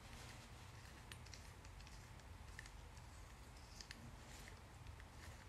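Near silence, with a few faint metal ticks from a thin tool probing the mechanism of an opened combination padlock.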